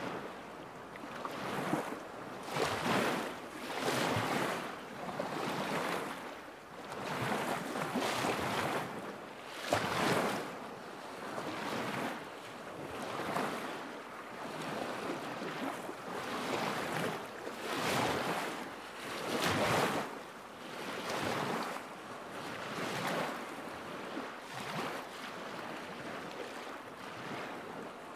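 Small waves lapping at the lakeshore: a wash of water that swells and falls back every second or two.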